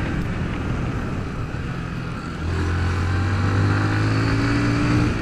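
Honda CG 150 Fan's single-cylinder four-stroke engine running while riding. About halfway through, the engine note grows louder and rises slowly in pitch as the bike accelerates.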